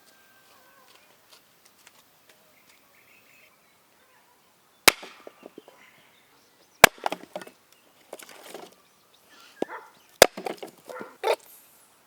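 Three sharp chopping strikes, a couple of seconds apart, each followed by lighter clattering and splintering.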